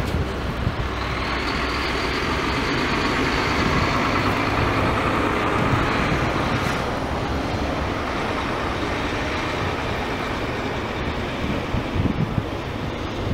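Tractor-trailer semi trucks driving past on a snow-covered road: engines running and tyres rushing through the snow. The noise swells as a truck passes in the first half, then eases off.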